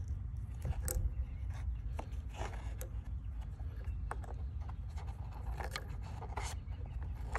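Fingers working PTFE (Teflon) thread-seal tape onto a threaded 3/4-inch brass pipe nipple: scattered short scrapes and rustles of tape on the threads, over a steady low rumble.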